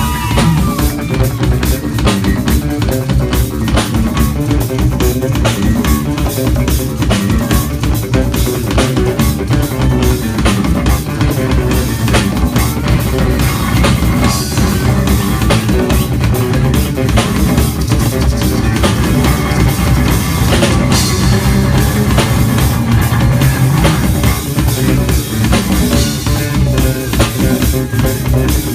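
Live rock band playing an instrumental passage: drum kit and bass guitar with electric guitar, heavy in the low end.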